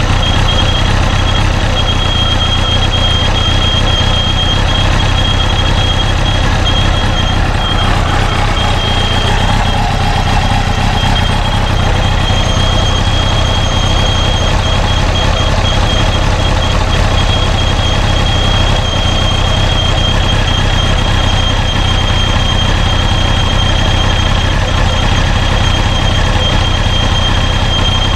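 Honda CBR929RR inline-four engine running steadily with a high-pitched metallic whine held over it. The mechanic suspects the worn, stiff water pump is the cause of the whine.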